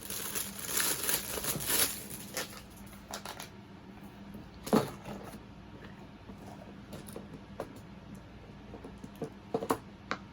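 Plastic packaging crinkling for about two seconds, then small plastic fidget toys handled with scattered light clicks and pops. There is one louder click about five seconds in and a quick run of clicks near the end.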